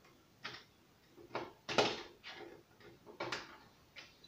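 Short plastic clicks and knocks from an LED TV's panel frame being handled and worked loose, about seven snaps, the loudest about two seconds in.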